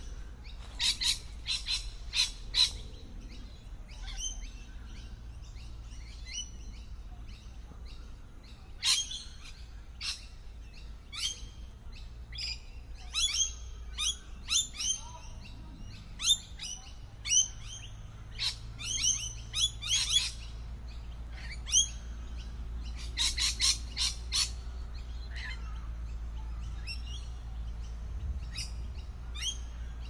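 Rainbow lorikeets calling in a tree: repeated short, shrill screeching chirps in quick clusters, thinning out near the end.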